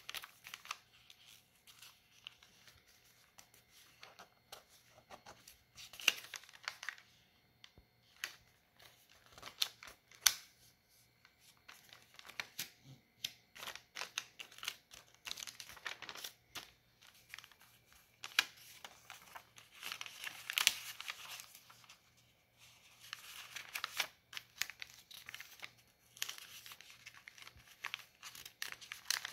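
Paper rustling and crinkling in irregular bursts as the flaps of paper foldables and sticky notes in a notebook are lifted, folded back and pressed flat, with scattered sharp clicks of paper handling.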